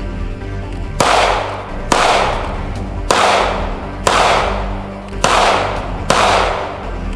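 Six gunshots fired at a steady pace, about one a second, each cracking sharply and echoing away over about a second, over background music.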